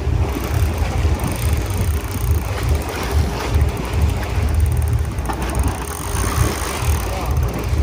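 Boat noise: a loud, uneven low rumble of the boat's engine and wind on the microphone, with sea noise over it.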